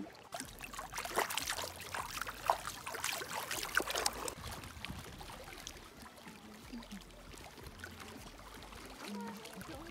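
A hand dipping into cold lake water and swishing it about: splashing and trickling for the first four seconds or so, then quieter lapping water.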